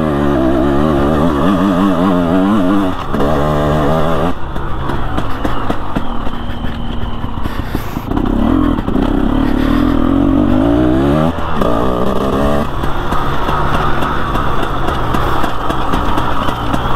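KTM Freeride 250R two-stroke engine running under load on a trail ride, its revs rising and falling repeatedly with the throttle.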